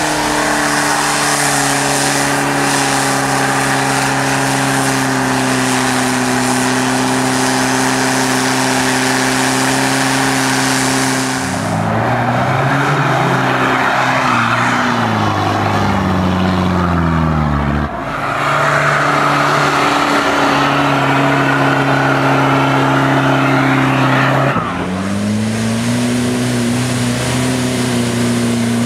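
Toyota Land Cruiser LJ70's 2.4-litre four-cylinder turbodiesel (2L-T) driven hard off-road at full power, held at high revs under load. The engine note falls and rises several times as the revs change, with abrupt changes about 12, 18 and 25 seconds in where clips are cut together.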